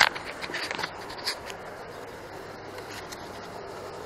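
Handling noise: fingers rubbing and scraping against the camera body, a cluster of short scratchy rustles in the first second and a half. After that only a steady low background hiss.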